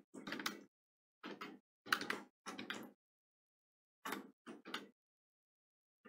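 Computer keyboard typing: about half a dozen short bursts of a few keystrokes each, with dead silence between them and a pause of about a second midway.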